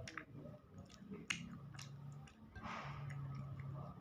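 Close-miked eating of chicken noodles: a series of sharp, wet mouth clicks while chewing, with a short rush of breathy noise about two and a half seconds in, over a low steady hum.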